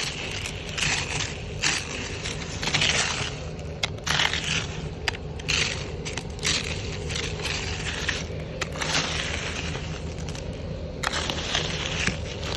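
Icy, crusted snow crunching and scraping in irregular bursts, some about a second long and some short and sharp, over a steady low hum.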